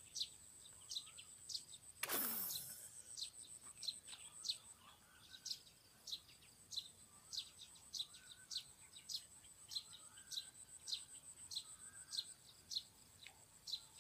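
A bird repeating a short, high chirp over and over, about every half second or so, over a steady high insect buzz that stops near the end. About two seconds in, a single loud whoosh falls in pitch from high to low.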